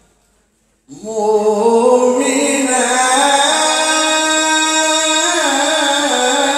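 Male Quran reciter's voice, amplified through a hand microphone, in melodic tilawah style. After a brief silence the voice enters about a second in and holds long, slowly gliding notes.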